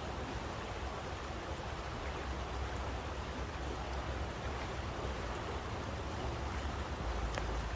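Steady rushing water noise with a low rumble underneath, unbroken throughout, and a faint click near the end.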